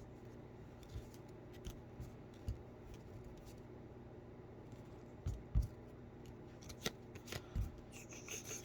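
Trading cards being handled and flipped through by hand: faint slides and soft taps, with a few louder knocks about five and a half and seven seconds in.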